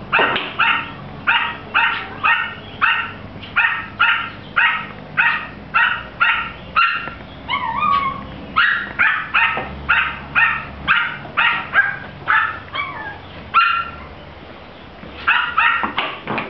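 Pomeranian yapping in a steady string of short, high barks, about two a second. Around eight seconds in there is a brief whiny yelp, and near the end the barking stops for a second or so, then starts again.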